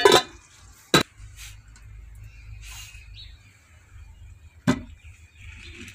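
Lidded metal cooking pot knocking and clanking as it is handled and lifted off a wood fire: three sharp clanks, two close together at the start and another near the end.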